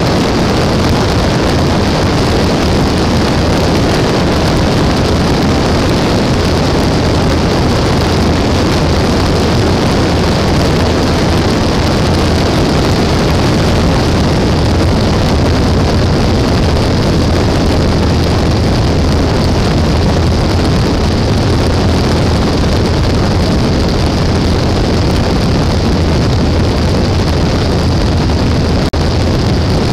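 Mooney single-engine piston airplane's engine and propeller running steadily, heard from outside at the tail with airflow rushing over the microphone. The level dips briefly near the end.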